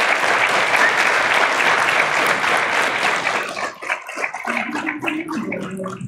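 Audience applauding, dense clapping that thins out about four seconds in to scattered claps.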